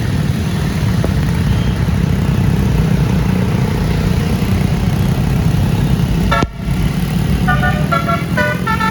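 Heavy bus engine running with a low rumble. After a brief break about six and a half seconds in, a multi-note 'telolet basuri' musical bus horn plays a quick melody of stepped notes that change pitch several times a second.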